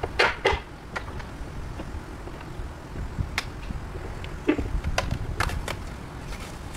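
Scattered sharp knocks and taps of hand-tool work on the house wall, about a dozen at uneven spacing, over a low steady rumble.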